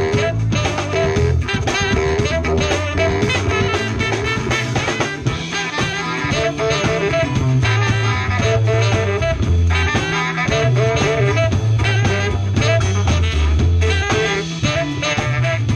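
Live horn band jamming an improvised funk-jazz groove, with a drum kit, a bass line and horns playing held notes.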